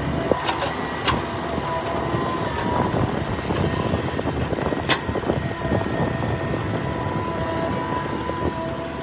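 Hitachi ZAXIS 350H excavator working: diesel engine and hydraulics running with a dense rumble and a steady whine, broken by three sharp metal clanks, two near the start and one about halfway through.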